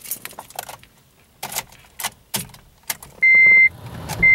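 Car keys jangling and clicking as the key goes into the ignition of a 2008 Honda Civic Si. Then, with the ignition switched on and the engine not yet running, the car's warning chime starts: a steady high beep about half a second long, twice, about a second apart.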